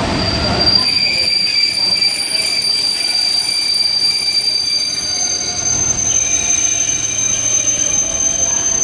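Steel wheels of passenger train carriages squealing against the rails as the train moves past: a steady high-pitched squeal that shifts to a slightly higher pitch about halfway through, over a low rolling rumble.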